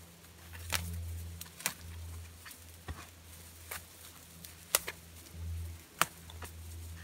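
Fir boughs rustling and their twigs cracking as they are pushed and shaken into the wall of a bough shelter: about six sharp snaps a second or so apart over a low rumble that comes and goes.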